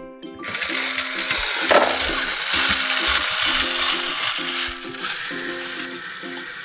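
A toy electric hand mixer whirring with its beaters in a bowl of batter, stopping about five seconds in; then water running from a toy kitchen sink's faucet.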